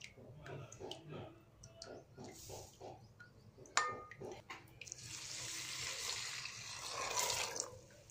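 Tap water pouring into a steel bowl of rolled oats to wash them, starting about five seconds in and easing off just before the end. Shortly before the water starts there is a single sharp, ringing metal clink.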